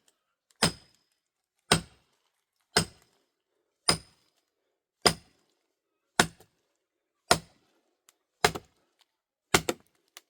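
Nine heavy, evenly paced blows of a hand tool, about one a second, each struck hard and followed by a short, high metallic ring.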